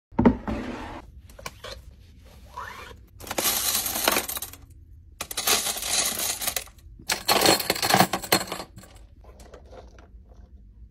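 A sharp knock at the start, then metal drinking straws rattling and clinking against each other as a hand rummages them out of a plastic bin. The rattling comes in three bursts of a second or so, with lighter clicks between and softer rustling near the end.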